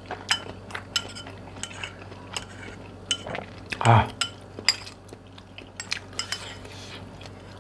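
Metal spoon clinking and scraping against a bowl as it cuts into a large meatball, many short sharp clinks. A brief voice sound from the eater about four seconds in.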